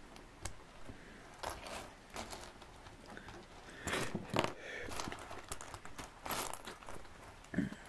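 Loose LEGO pieces clicking and rattling against each other as hands pick through a pile of small plastic bricks, with some crinkling of a plastic parts bag.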